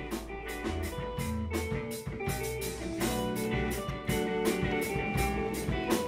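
Loud background music: guitar over a steady drum beat, about four hits a second.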